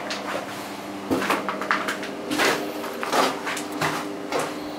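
A spade knocking and scraping on broken concrete and gravel rubble: about seven irregular clatters and scrapes over a steady low hum.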